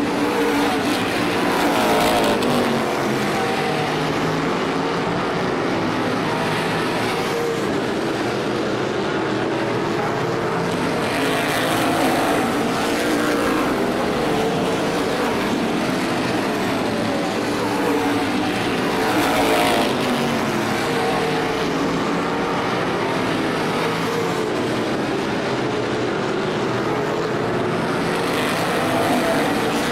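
Several race car engines running laps on an oval track, rising and falling in pitch as the drivers get on and off the throttle. The sound swells each time the field comes past, several times over.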